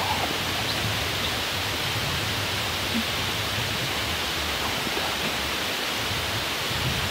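Steady wind noise: an even rushing hiss with a low rumble underneath, no gusts or breaks.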